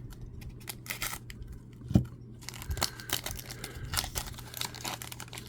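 Crinkling and tearing of trading-card pack wrappers being handled and opened, with scattered small clicks and one louder knock about two seconds in.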